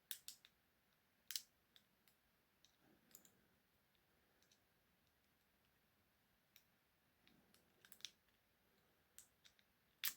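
Faint, irregular metallic clicks of a bobby pin being worked in the keyhole of an ASP handcuff, picking it open.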